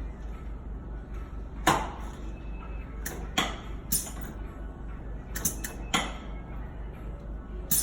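A series of sharp clicks and knocks from a chiropractic adjustment, the loudest about two seconds in, over a steady low hum.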